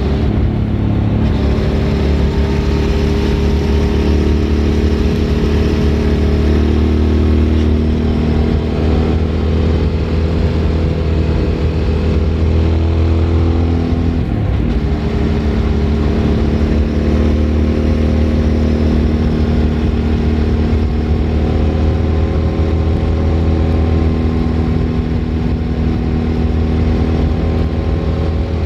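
Suzuki V-Strom 1000's V-twin engine through a Remus aftermarket exhaust, pulling under way with its pitch slowly rising. About halfway through the revs drop briefly and sharply, then the engine pulls on steadily.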